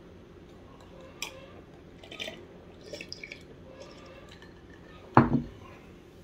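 Eating and drinking sounds up close: a few small wet clicks and crackles, then one loud knock about five seconds in.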